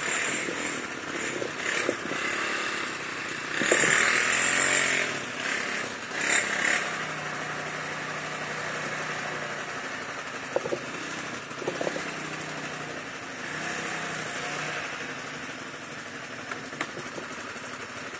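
ATV (quad bike) engines running, revving loudest about four seconds in, then settling to a steady low running note.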